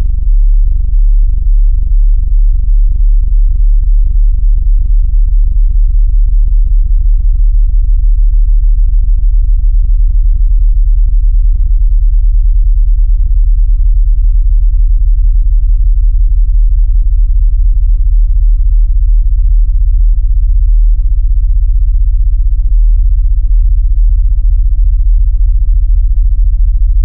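A very low-pitched hum, boosted loud, pulsing rapidly and steadily, like a diesel engine running in the distance. It is an amplified rendering of the night-time 'Hum' that some people report hearing.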